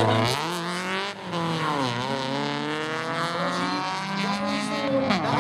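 Rally car engine revving hard, its pitch climbing, dropping about two seconds in and again near the end, and climbing back each time.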